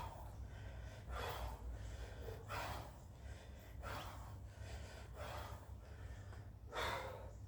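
A person breathing hard, with five heavy, gasping breaths about one every second and a half, over a low steady hum.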